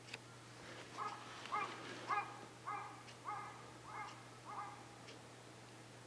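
An animal calling seven times in an even series, each call short, about 0.6 s apart, starting about a second in and stopping just before the five-second mark.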